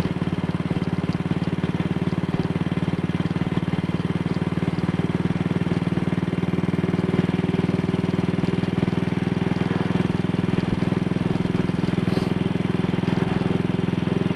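AJS Model 8 single-cylinder engine running steadily under way, with an even beat and no misfire, jerks or pops: the misfire, caused by a dislodged carburettor needle clip now reseated, is cured.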